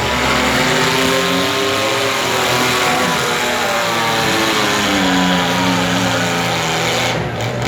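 Several compact demolition-derby cars' engines revving at once, their pitches rising and falling and overlapping, over a constant roar.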